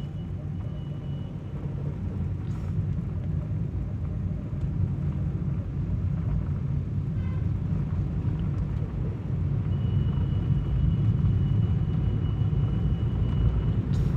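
Steady low engine and road rumble of a vehicle driving downhill, heard from inside its cabin. It grows a little louder in the second half, and a faint high whine comes in near the end.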